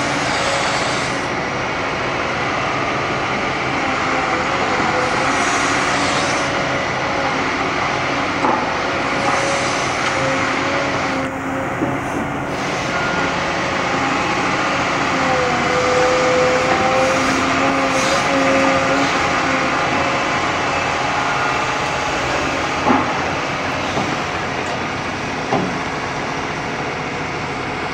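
Liebherr 946 crawler excavator's diesel engine and hydraulics working under load as it digs soil, with a whine that shifts in pitch. A few sharp knocks come through, the loudest about three-quarters of the way in.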